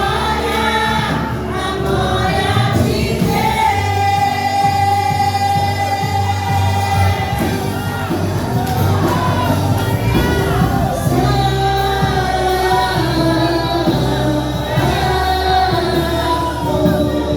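A group of singers performing a Christian worship song over a band, with held sung notes and a steady bass line.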